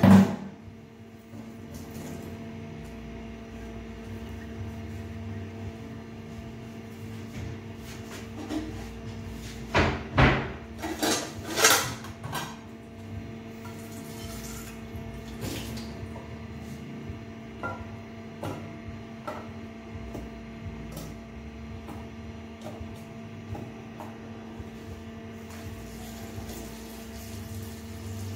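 Kitchen handling noise: a sharp knock at the start, a few loud clatters of a metal pot and utensils about ten to twelve seconds in, and scattered light knocks and clicks, over a steady hum.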